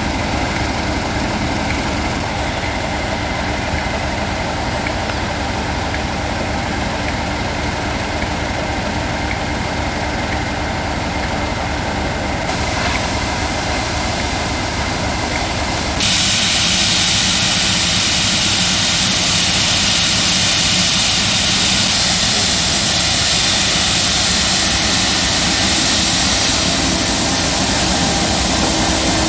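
A heavy engine idling steadily. About halfway through, the sound jumps abruptly louder and a strong hiss joins the engine and holds to the end.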